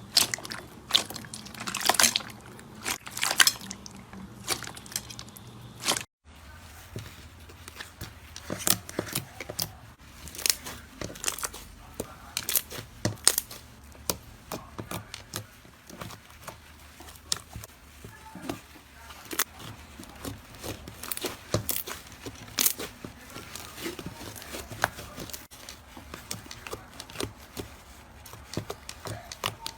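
Slime being squeezed, poked and stretched, making irregular crackling, popping clicks and crunches. A brief gap about six seconds in marks a switch to another piece of slime, which crackles on more finely.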